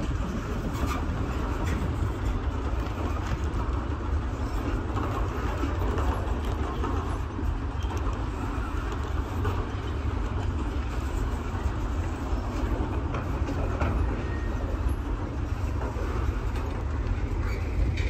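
A train rolling past with a steady rumble and faint clicking from the wheels.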